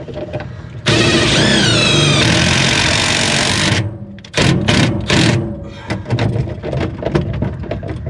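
Milwaukee M12 Fuel cordless impact driver driving a self-tapping screw into the furnace's sheet-metal cabinet. It runs for about three seconds, its pitch dipping as the screw bites, then gives several short trigger bursts as the screw is snugged down.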